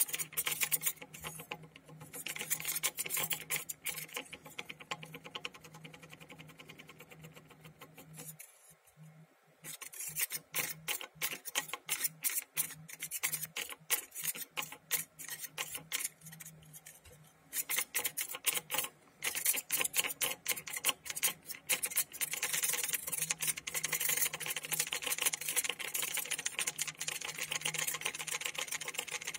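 Rapid dry clicking and rasping from a spinning ceramic bowl fitted with a metal spoon and foil strips, rattling as it turns. The clicks thin out for a couple of seconds about a third of the way in, and again a little after halfway. A low steady hum runs underneath.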